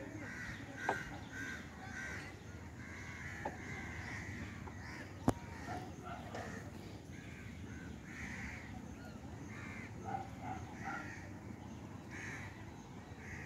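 Crows cawing over and over, with a few sharp knocks, the loudest about five seconds in.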